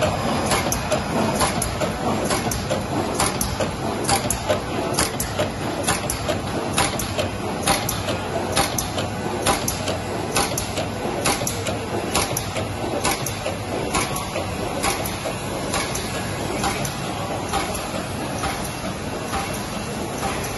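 BSF-1400 bottom seal bag making machine running, a steady mechanical noise with a regular clacking two or three times a second as it cycles.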